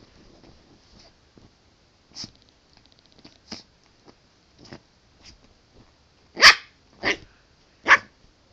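Schipperke puppy sniffing and snuffling at a pillow, then giving three short, sharp barks in the last two seconds, the first the loudest.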